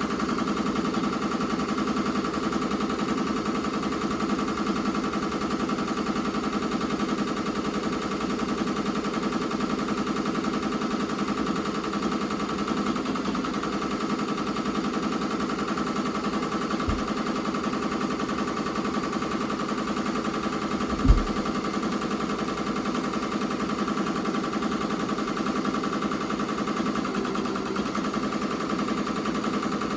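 Ricoma MT-2002-8S multi-needle embroidery machine stitching at speed, a steady rapid rattle of needle strokes as it sews lettering into a terry kitchen towel. A brief low thump stands out a little past the middle, with a fainter one shortly before it.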